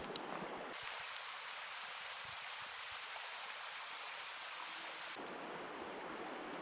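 Steady rushing hiss of flowing creek water, its character changing abruptly twice: a little under a second in, and again about five seconds in.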